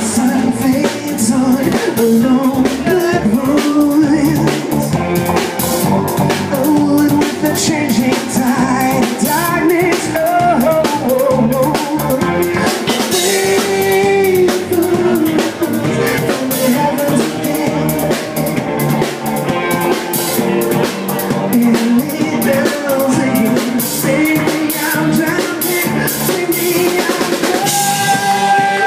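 Live band playing amplified music: a drum kit driving a steady beat under electric guitar and bass, with a singer's voice through the PA.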